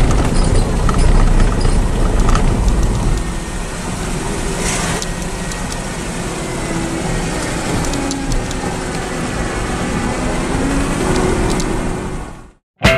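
Jeep driving along a narrow road, heard from inside the vehicle: steady engine and road noise with a strong low rumble. It cuts off abruptly just before the end.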